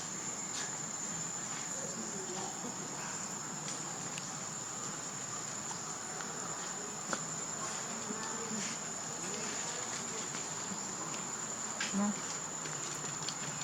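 Steady high-pitched drone of insects, unbroken throughout, with scattered faint clicks and a brief low sound about twelve seconds in.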